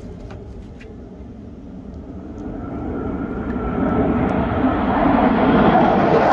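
Jet engine noise from a formation of Blue Angels F/A-18 jets flying toward the listener, swelling steadily louder and brighter from about two seconds in as they close overhead.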